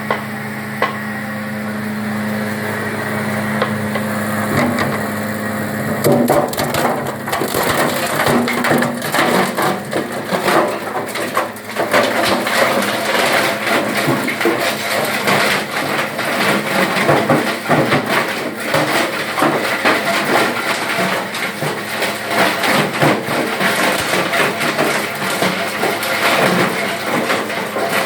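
Wood crusher machine running: a steady hum at first, then from about six seconds in a dense, irregular crackling and crunching as wood is chopped up in it.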